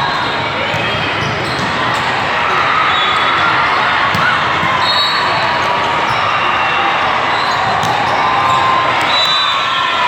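Steady din of a big indoor volleyball venue: many overlapping voices calling and chattering, with volleyballs bouncing and being struck.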